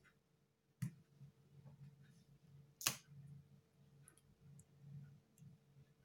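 Small repair tools clicking and tapping against an opened iPad 2's frame and flex cables, with two sharp clicks about two seconds apart, the second louder, and a few faint ticks between.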